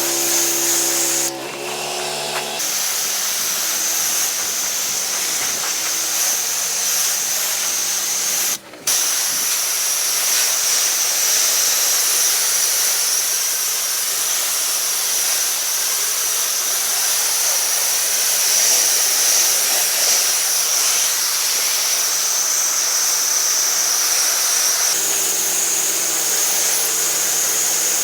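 Steady hiss of water spraying from a pressure-washing wand, with a brief break about nine seconds in. A pressure-washer engine hums steadily under it at the start and again near the end.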